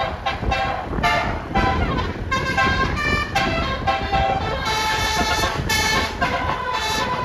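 Bus 'telolet' musical horn (basuri) playing a multi-note tune: a quick run of short notes stepping up and down in pitch, then longer held notes near the end, over steady engine and road noise.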